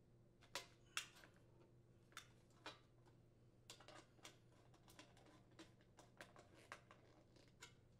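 Faint clicks and taps of an aluminium dryer vent elbow being handled against a long vent pipe. From about halfway in, a run of small ticks comes as the screw of a 4-inch band clamp around the joint is turned with a screwdriver.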